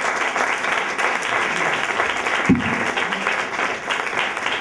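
Audience applauding at the end of a talk, with a single dull thump about halfway through.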